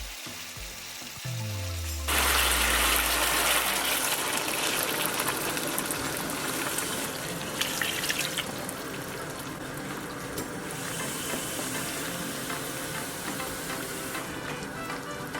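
Water starts running suddenly about two seconds in and pours on steadily, the water going into the pot of chicken curry.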